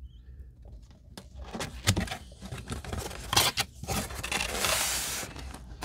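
Cardboard box being handled and opened: scattered knocks and scrapes, then a longer scraping rustle from about four and a half seconds in as the lid slides off.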